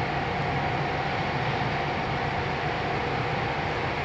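Steady machinery hum with a thin, even whine above it, machine-shop machinery running without change.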